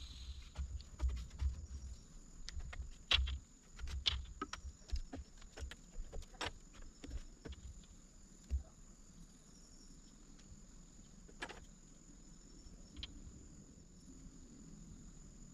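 Insects droning on one steady high note, with scattered clicks and knocks of hand work over the first half that thin out after about eight seconds.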